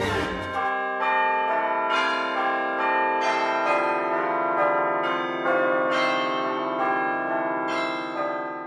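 Bells pealing: a sequence of struck bell notes, one to two a second, each ringing on beneath the next.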